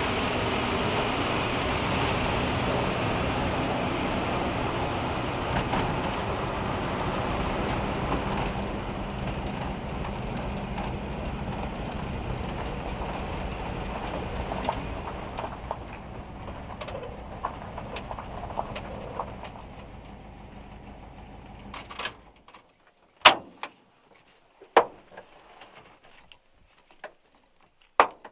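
Steady engine and road noise inside the cab of an old van driving in rain. It fades gradually and stops at about twenty-two seconds. A handful of sharp clicks and clunks follow from the van's door latch and handle as the front door is opened.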